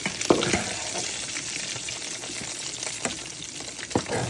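Chicken livers frying in hot oil, a steady sizzle, with two sharp knocks of a utensil against the pan: once just after the start and once near the end.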